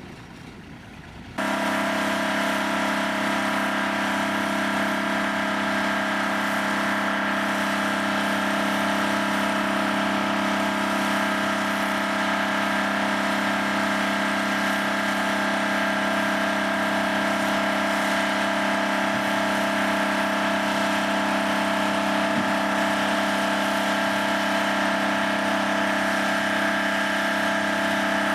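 Engine of a large seepage-pit drilling rig running at a steady, unchanging speed; it cuts in abruptly about a second in.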